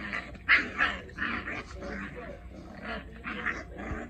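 A French Bulldog and a Chihuahua puppy play-fighting, with a string of short yips and barks.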